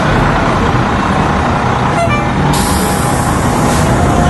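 Fire engine's diesel engine running as it drives slowly past close by, with a sudden hiss about two and a half seconds in that lasts about a second.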